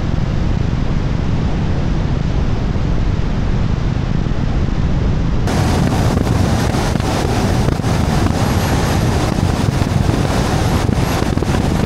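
Wind rushing over an action camera's microphone on the hood of a moving car, with steady low road rumble. Through the Insta360 Ace Pro 2 with its built-in wind screen it is a dull, steady roar; about halfway it switches to the DJI Action 5 Pro, which has no wind screen, and turns hissier, with a lot of crackling buffeting.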